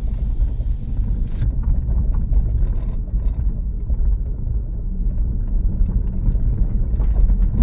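Camper van driving slowly over a rutted dirt track, heard from inside the cab: a steady low rumble of engine and tyres, with small rattles and knocks from the bumpy road. A faint hiss is heard for the first second and a half.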